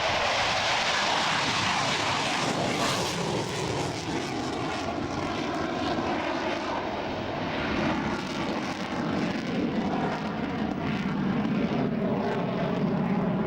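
Roar of an F-16's turbofan jet engine during a display flypast. It is harshest and most hissing in the first few seconds, then turns into a deeper rumble.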